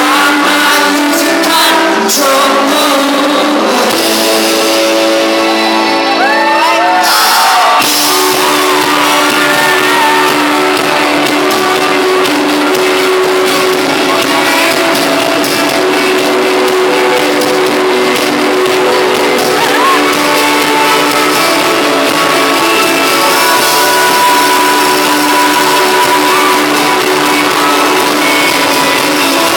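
A rock band playing live, with singing and shouts over the instruments, loud throughout; the bass fills out about eight seconds in.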